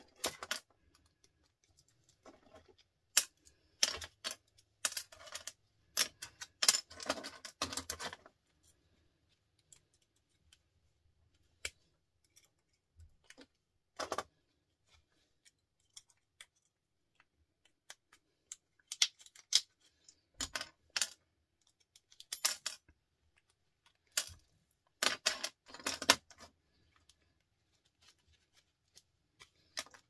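Irregular clicking and rattling of small plastic and metal parts as microwave switches are pulled apart by hand, coming in clusters with quiet gaps of a few seconds between them.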